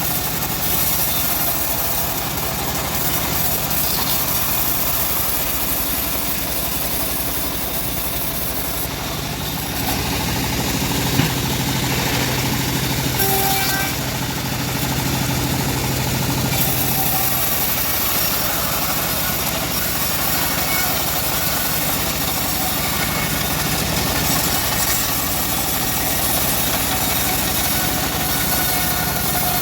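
Homemade engine-driven band sawmill running steadily while sawing mahogany. A deeper hum holds for several seconds in the middle, with a single sharp knock about eleven seconds in.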